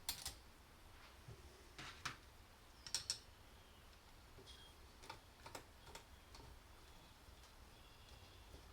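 Scattered light clicks and taps of small metal carburetor parts and hand tools being handled while the float bowl is fitted and screwed down, about half a dozen separate knocks with quiet between them.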